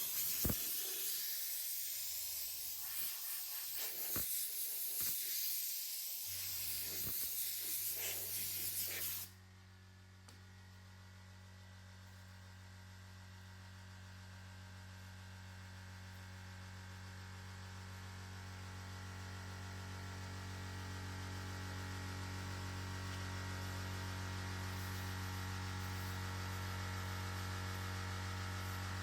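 Spray hiss for about nine seconds, with a few clicks, that cuts off suddenly; this fits paint or degreaser being sprayed onto the motorcycle body panel. A steady electrical hum then takes over and slowly grows louder.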